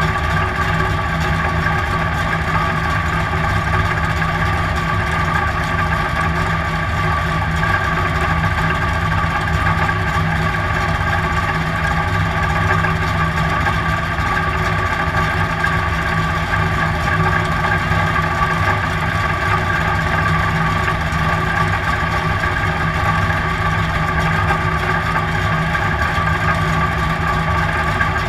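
A dirt-track race car's engine idling steadily, heard from inside the cockpit, with no revving or change in pitch.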